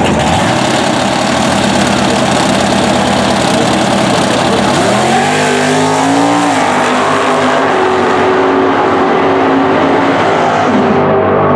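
Two drag racing cars, a classic first-generation Camaro and a modern Camaro, run loud engines at the starting line. About five seconds in, the engine note climbs steeply in pitch as they launch and accelerate hard. It drops back at a gear change and then carries on down the track.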